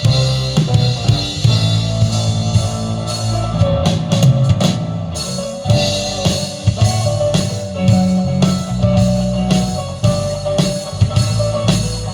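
Music with a steady drum-kit beat, bass drum and snare, over a bass line and sustained pitched notes.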